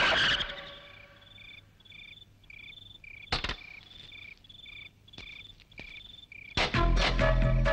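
Cricket chirping steadily, about two short chirps a second, with a few sharp clicks. Music fades out at the start and comes back in loudly near the end.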